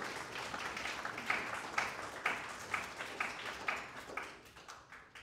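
Small audience applauding, with one nearby clapper standing out at about two claps a second; the applause dies away near the end.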